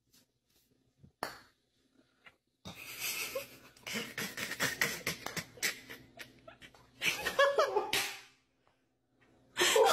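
A person laughing breathily, loudest around the seventh second and again near the end, over scattered clicks and knocks from a putter and golf balls on a putting mat. A single sharp click comes about a second in.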